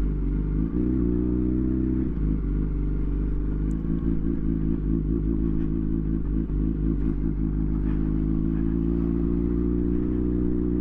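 Yamaha R1 motorcycle's inline-four engine running steadily at low road speed, its pitch rising a little about a second in and again near the end.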